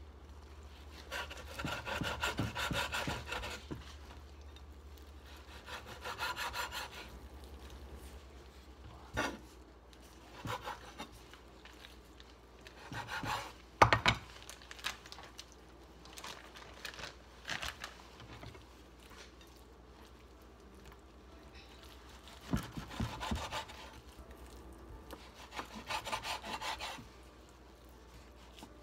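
A large chef's knife sawing through raw meat on a wooden cutting board, in several strokes of a second or two each with pauses between. A sharp knock of knife on board comes about halfway through.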